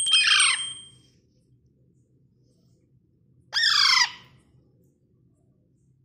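Alexandrine parakeet giving two loud, harsh squawks about three and a half seconds apart, each sliding down in pitch.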